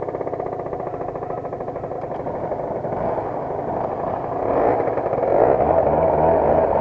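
Small scooter engines idling with a fast, even beat; about four and a half seconds in, the engine note rises and grows louder as a scooter pulls away.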